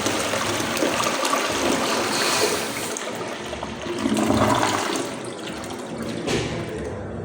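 FV flushometer valve flushing a commercial fixture: a loud rush of water that swells again about four seconds in and then fades toward the end.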